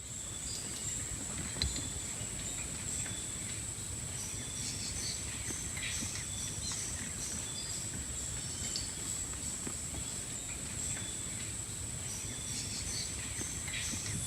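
Tropical rainforest ambience: a steady high-pitched insect drone throughout, with scattered short chirps from other animals and a low rumble underneath.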